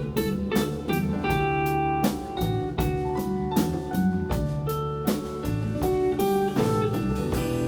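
Live soul band playing an instrumental passage: guitar over drum kit, bass and keyboards, with a steady beat.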